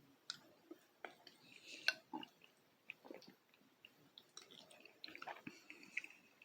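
Close-up chewing of canned mini beef ravioli: faint, irregular wet mouth clicks and smacks.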